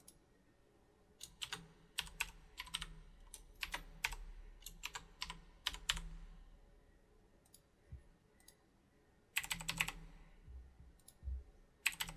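Typing on a computer keyboard: a run of keystrokes over the first half, a pause, then short bursts of keystrokes near the end.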